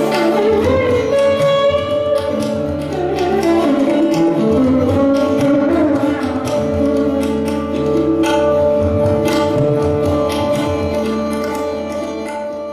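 Instrumental background music: a melody over a steady drone, with frequent drum strokes, fading out near the end.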